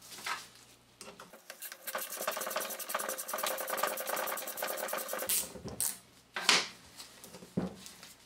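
A through bolt being run into a starter motor housing, a rapid even ticking for about four seconds, then a few sharp knocks as the metal motor parts are handled.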